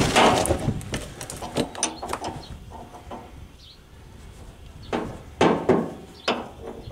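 Wrench clicking and clinking against a steel brake line fitting as it is fitted and turned under a truck's frame. A few sharp metal clicks come at the start and around two seconds in, then a quick cluster of clinks about five to six and a half seconds in.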